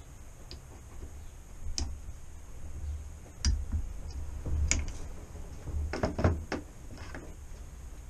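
Clicks and knocks of a torque wrench with an Allen socket being worked on a suspension fork's lower-leg bolts: a few separate sharp clicks, then a short cluster of them about six seconds in.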